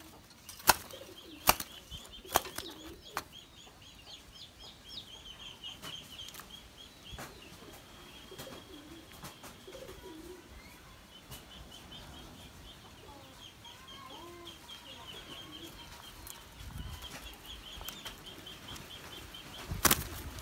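Spotted doves fighting in a wire cage: wings flapping and slapping, with sharp knocks four times in the first three seconds and again near the end. A few low bird calls come in between, over a steady high chirping in the background.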